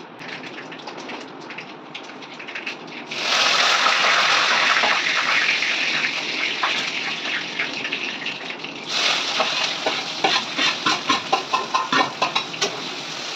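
Tadka in hot mustard oil in a kadai: the oil sizzles loudly when the tempering goes in about three seconds in. After several seconds the hiss gives way to rapid crackling pops and the clink of a stirring spoon.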